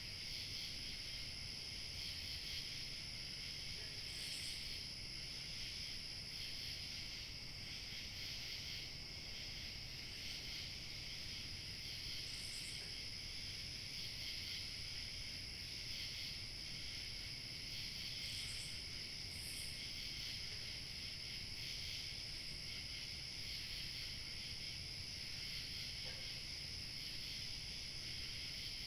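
A steady chorus of crickets chirping without a break, with a thin high continuous trill above it and a few brief higher chirps scattered through.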